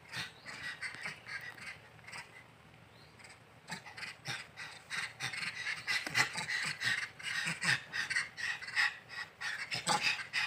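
Rhesus macaques giving rapid, harsh threat barks in an irregular series, growing louder and denser about halfway through: an aggressive open-mouth threat display at whoever is filming.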